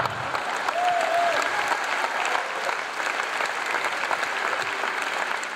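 Large theatre audience applauding and laughing after a punchline, the clapping slowly easing off.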